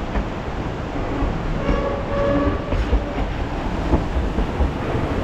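Durango & Silverton steam train: a steady rumble and hiss, with short high metallic squealing tones about two seconds in.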